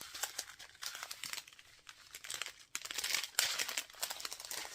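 Plastic bags crinkling as they are handled, in irregular bursts of rustling, loudest about three seconds in.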